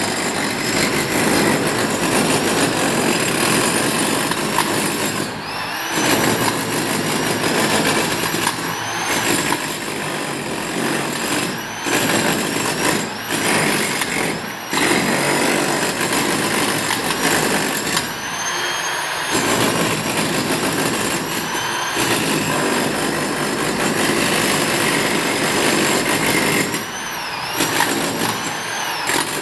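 Electric rotary hammer with a chisel bit chiselling a groove into a brick wall, hammering steadily for the wiring chase. It stops briefly about eight times, and after several of these pauses the motor comes back with a short rising whine.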